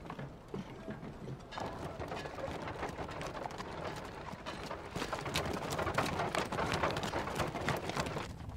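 Horse hooves clip-clopping on a stone-paved street, as of a horse-drawn carriage, with irregular knocks that grow louder from about halfway through.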